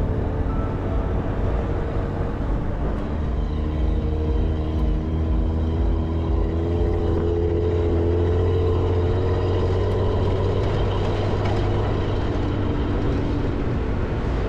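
Toyota motorhome's V6 engine running steadily while driving over a gravel and sand track, with tyre noise and wind heard from outside beside the front wheel. The engine note climbs a little in pitch about halfway through.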